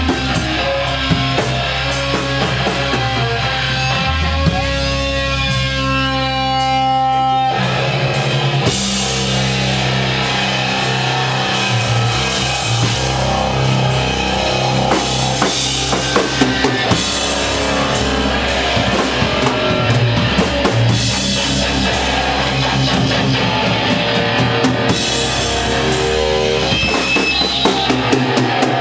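Doom metal band playing live and loud: heavily fuzzed electric guitar (Gibson Les Paul through a Matamp GT1 valve amp and 1x15 cabinet) with drums. About four seconds in the sound thins to a sustained ringing note, then the full band comes back in near eight seconds.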